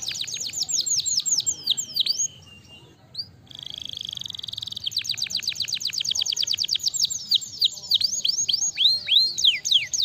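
Domestic canary singing: fast trills of quick falling notes, a brief pause about two seconds in and a short steady note, then a very fast trill followed by slower sweeping notes.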